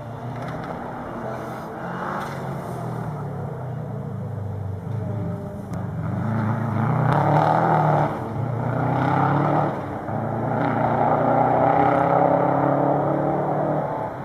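Subaru Impreza GT's 2.0-litre turbocharged flat-four boxer engine revving hard as the car accelerates. The engine note climbs and drops back several times with gear changes, cutting off sharply twice near the middle, and grows louder as the car comes closer.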